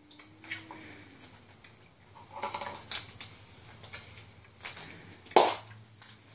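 A toy surprise egg being handled and opened by hand: scattered clicks and short rustling bursts of its wrapping and shell, with a sharper crack about five seconds in.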